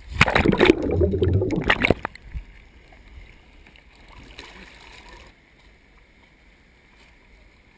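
Water splashing and sloshing loudly against a waterproof action camera at the waterline for about two seconds, then fading to soft lapping.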